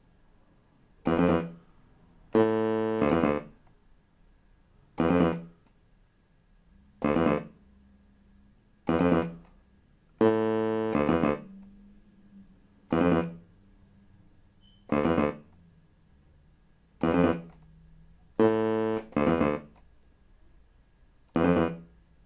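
Background music of sparse piano: single notes struck about every two seconds, with a fuller chord held for about a second three times, with quiet between them.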